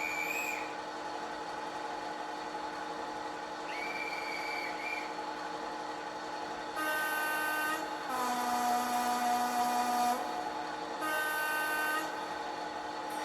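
Sound-fitted OO gauge Accurascale class 55 Deltic model playing its recorded Napier Deltic engine running sound through a small onboard speaker, with two short high squeaks early on. About seven seconds in, its two-tone horn sounds high, low, then high again.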